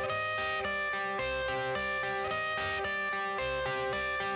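Background music: a guitar-led instrumental intro with a steady beat.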